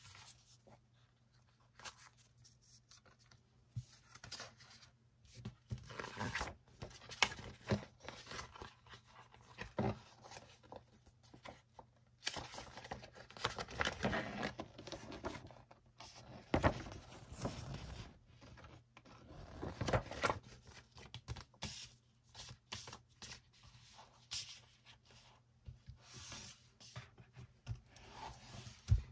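Paper, card and a shrink-wrapped album being handled and slid about on a table: irregular rustling and scraping with scattered light taps, heavier in the middle stretch.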